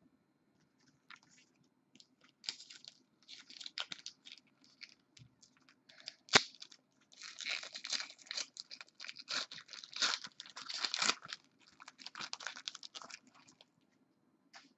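Foil trading-card pack wrappers being torn open and crinkled, in irregular crackling bursts, with one sharp snap about six seconds in.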